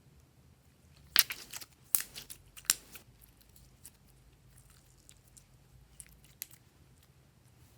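Slime being worked by hand, giving crisp crackling clicks in three quick bunches about a second in, then a few scattered single clicks.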